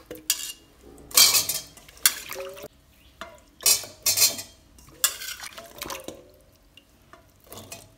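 A steel ladle clinking and scraping in a stainless-steel pressure cooker pot of cooked lentils as chopped elephant yam pieces and shallots are dropped in and stirred: a scattered series of short metallic clinks.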